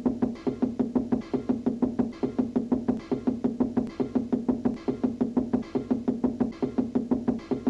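Cartoon knocking on a wall with a fist, fast and evenly paced at some four to five knocks a second, each knock carrying a low pitched ring so that it sounds musical, repeating without a break.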